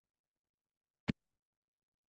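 A single computer mouse click, opening a listing on the screen.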